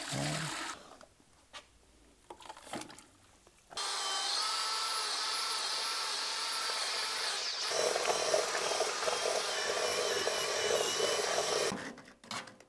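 Water pouring into a bucket briefly at the start, then a power drill with a paddle mixer runs steadily for about eight seconds, stirring thin-bed adhesive for aerated concrete blocks. The drill's sound changes partway through as the mix thickens.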